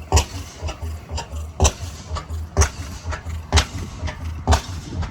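Antique engine running slowly, with a loud exhaust bang about once a second and lighter pops between, over a pulsing low rumble.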